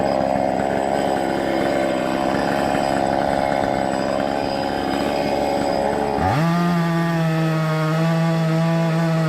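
Two-stroke chainsaw cutting into a dry tree trunk, running loud and rough under load. About six seconds in, its pitch climbs quickly and it holds a steady high whine at full speed.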